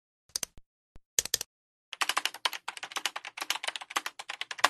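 Keyboard typing sound effect: a few key clicks, then a fast, continuous run of clicks from about two seconds in.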